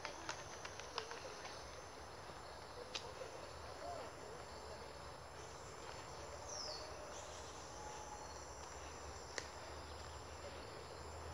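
Faint tropical forest ambience: a steady hiss of insects, with a few light clicks and a short falling high chirp a little past the middle.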